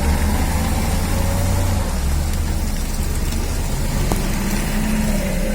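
Heavy logging truck's engine running with a deep, steady rumble that eases slightly about two seconds in.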